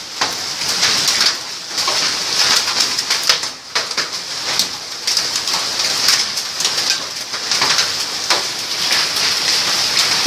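Hailstones falling hard and striking surfaces: a dense stream of sharp clicks and knocks over a steady rushing hiss of the storm.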